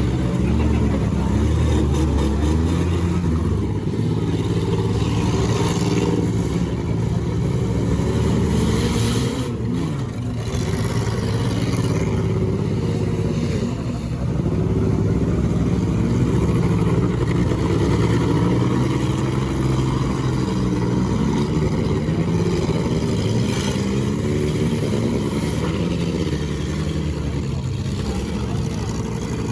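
Several demolition derby car engines running and revving hard at once, their pitch rising and falling, with a few sharp bangs of cars colliding around the middle.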